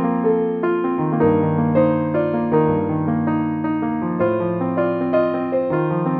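Background music: piano playing a melody over sustained chords at a steady moderate pace.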